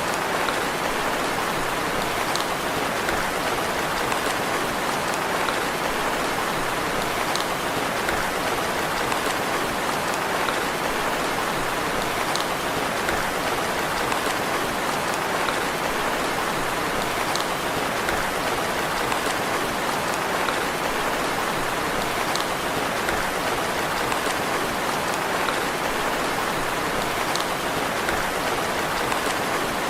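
Steady rain falling, an even hiss of drops, with a faint sharp drop tick about every five seconds.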